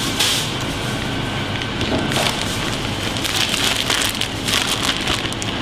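A clear plastic bag crinkling and rustling as it is handled, densest in the second half, over a steady hiss of kitchen background noise.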